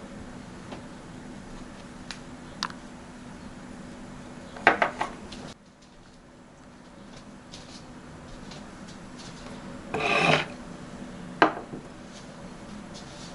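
Kitchenware being handled: a quick cluster of clinks and knocks near the middle, a short scraping rub about ten seconds in and another single knock, over a faint steady low hum.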